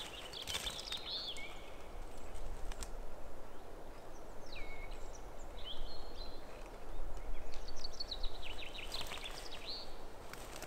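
Small songbirds singing: several high, quick trills that run down in pitch, coming a few seconds apart, over a low steady rumble.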